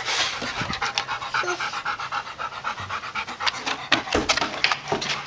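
A dog panting close by, quick and even, about four or five pants a second.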